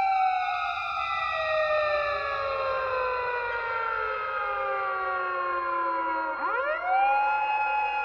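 A siren wailing: a long, slow falling tone, overlapped by a second falling tone, then a quick rise about six and a half seconds in that levels off into a steady high tone.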